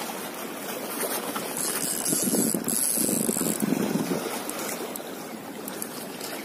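Spinning reel being cranked against a hooked fish, its gears whirring, under a steady rush of wind and water.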